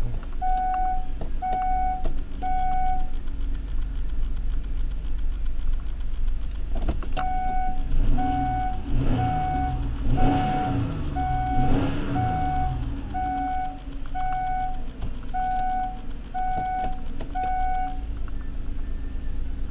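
Kia Sorento V6 engine running inside the cabin, revved up and down a few times about midway, sounding pretty good to the owner after the coil pack swap. Over it a dashboard warning chime beeps about once a second, first for a few beats and then steadily for about eleven seconds.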